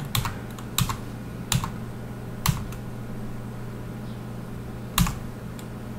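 Separate key presses on a computer keyboard: five sharp clicks spread unevenly over a few seconds, the last one the loudest, over a low steady hum.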